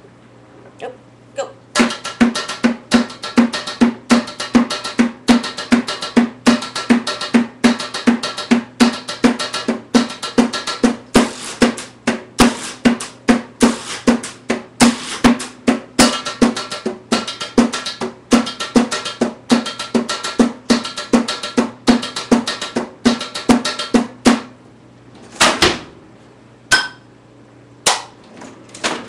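Improvised drumming with a stick on kitchen pots and containers: a steady, fast rhythm of sharp strikes, each carrying the same low ringing note. The beat stops after about twenty-four seconds, a few loose strikes follow, and it starts again at the very end.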